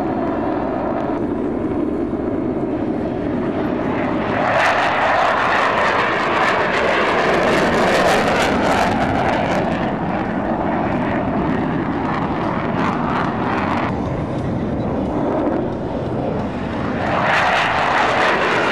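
Jet engine noise from USAF Thunderbirds F-16 Fighting Falcons flying overhead. It swells louder about four seconds in, eases off about fourteen seconds in, and rises again near the end as a single jet climbs close by.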